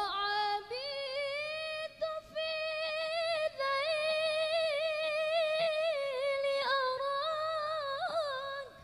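Female voice singing an unaccompanied, heavily ornamented sholawat melody in a hadrah al-banjari performance, the frame drums silent. Long held notes with wavering runs, broken twice by short pauses for breath, and the phrase stops shortly before the end.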